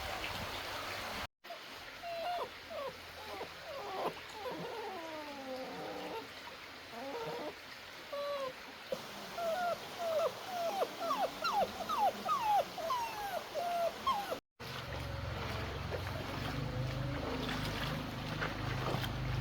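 A puppy whimpering and whining in a long run of short, high cries that glide up and down, coming faster and louder towards the end before cutting off suddenly. Steady background noise comes before and after the cries.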